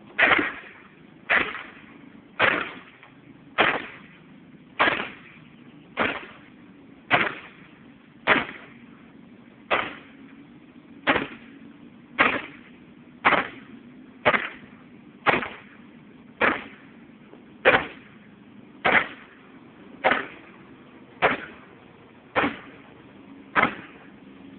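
Heavy blows striking a wooden dog house over and over, about one a second, each a sharp crack with a short ring of wood.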